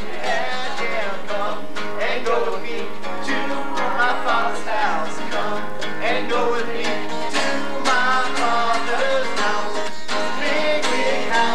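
Acoustic guitar strummed in a steady rhythm, with singing over it.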